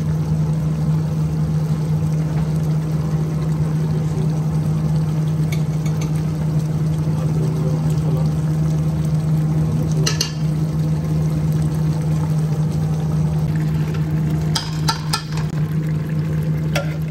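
Spiced oil sizzling in a large aluminium pot over a steady low kitchen drone, with a metal ladle clinking against the pot about ten seconds in and several times near the end.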